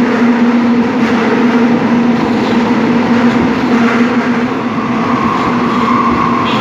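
Seoul Subway Line 5 train running on the track, a steady rail rumble with a low electric motor tone that fades out about four seconds in while a higher whine comes in near the end.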